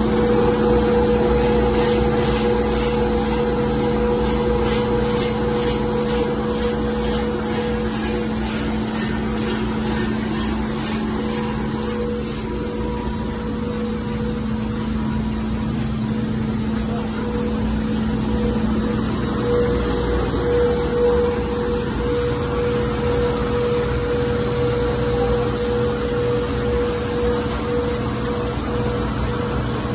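Corn flake hot-air roasting machine and its vibrating discharge conveyor running: a steady mechanical hum with two held tones, the lower one fading out about two thirds of the way in.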